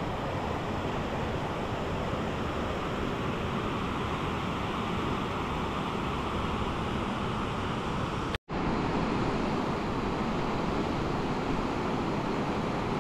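Steady rushing noise of fast-flowing water, briefly cut off by a sharp dropout about eight seconds in.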